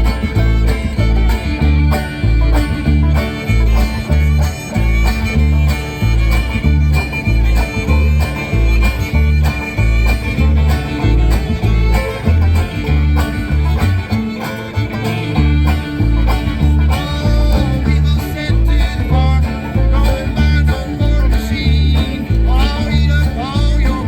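Old-time string band music played live: fiddle and plucked strings over steady bass notes alternating between two pitches on the beat.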